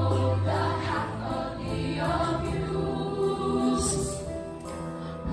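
Youth show choir singing held chords over musical backing.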